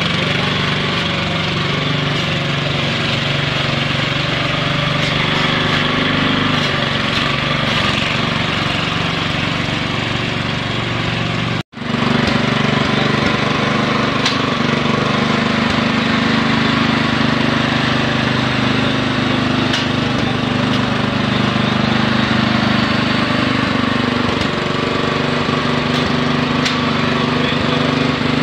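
Machinery running steadily with a loud, engine-like hum. About twelve seconds in, the sound cuts out for an instant, then carries on with its hum at a slightly different pitch.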